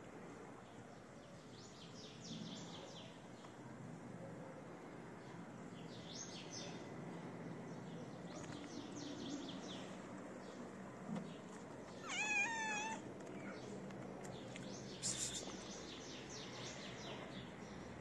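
A tabby cat gives one short, wavering meow about twelve seconds in, over faint, scattered bird chirps. A brief sharp tick follows a few seconds later.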